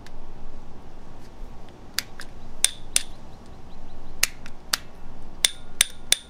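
Bicycle handlebar thumb shifter being clicked over and over: about a dozen sharp, irregular clicks, some with a brief metallic ring.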